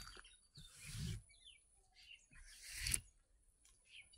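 Faint bird chirps, short and scattered, with soft rustling handling noise that swells twice, the louder swell peaking about three seconds in.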